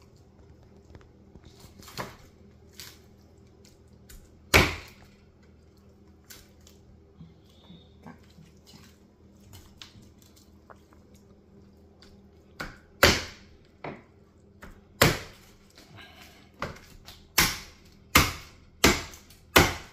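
Large kitchen knife chopping through a cooked chicken's bones onto a wooden cutting board: a few separate heavy strikes in the first half, then a run of about eight chops in quick succession near the end.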